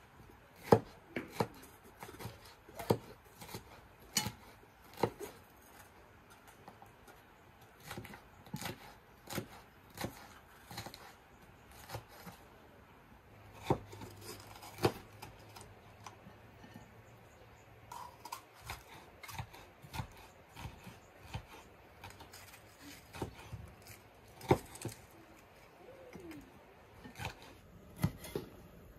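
Kitchen knife slicing bell peppers on a wooden cutting board: irregular sharp knocks of the blade meeting the board, several in quick succession in the first few seconds, then more spaced out.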